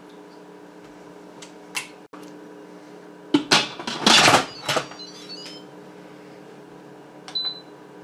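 Instant Pot pressure cooker lid set onto the pot and turned shut, a clatter of plastic and metal about halfway through. Near the end there is a single short electronic beep as a button on the control panel is pressed.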